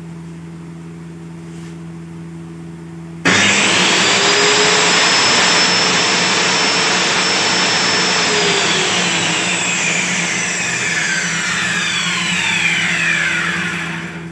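Modern-brand circular saw mounted under a homemade table saw, switched on about three seconds in: the motor and free-spinning blade start abruptly with a loud high whine and run at full speed. A few seconds later it is switched off and spins down, the whine falling in pitch until it stops near the end.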